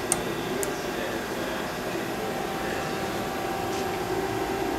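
Hwacheon Cutex 160 CNC lathe running, a steady machine hum as its turret is driven along the axes. Two brief sharp ticks come near the start, and a steady higher whine joins a little before halfway.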